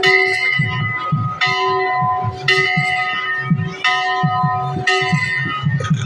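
Large temple bell struck five times, a little over a second apart, each stroke ringing on into the next.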